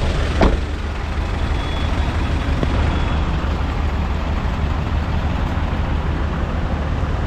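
Steady road traffic noise, with vehicle engines giving a low hum under road noise. One brief sharp sound stands out about half a second in.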